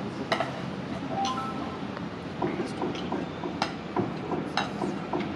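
Scattered light clinks and taps of soil and small stones being scooped from bowls and tipped into potted saplings, over a low murmur of voices.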